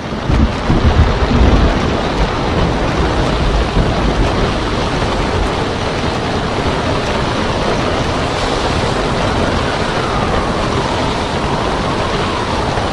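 Storm at sea: a steady roar of strong wind and breaking surf, with heavy low rumbling in the first couple of seconds.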